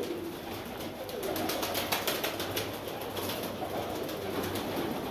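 A flock of Sialkoti pigeons cooing softly as they feed, with many quick clicks of beaks pecking grain off the floor.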